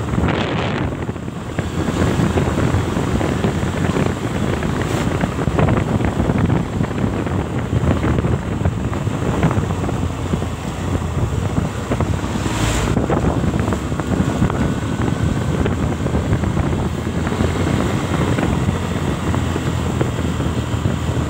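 Wind buffeting the microphone over a motorcycle running along the road, a steady rushing noise with no break.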